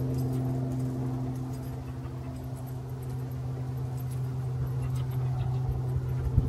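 A dog eating from a bowl inside a canvas crate, with faint clicks of licking and chewing over a steady low hum. There is a sharp knock near the end.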